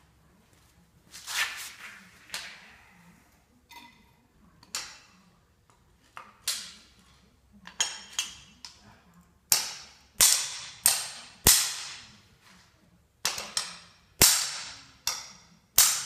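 Hammer striking metal on a concrete floor: a dozen or more sharp blows, each with a short ring, irregular, spaced out at first and coming harder and closer together in the second half.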